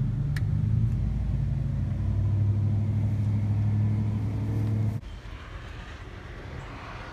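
Ram 2500's 6.7 Cummins turbo-diesel inline-six with a 5-inch turbo-back straight-pipe exhaust running at a steady idle, a loud, even low hum. It cuts off sharply about five seconds in, leaving a much quieter background.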